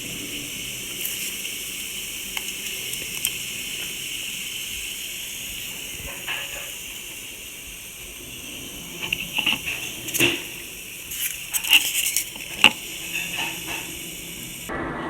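A utensil clinking and scraping against a bowl as slime ingredients are mixed, over a steady hiss, with a run of sharper clinks in the second half.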